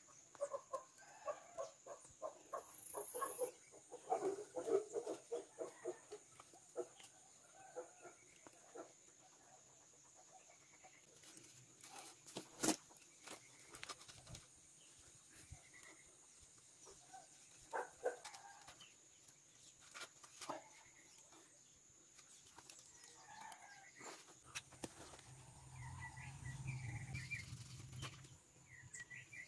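Chickens clucking on and off, with a single sharp knock about halfway through.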